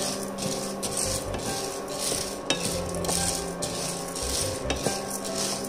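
Dry chana dal rattling and scraping in a non-stick frying pan as a spatula stirs it, in sweeps about every half second with a few sharp clicks. The dal is being roasted toward golden brown.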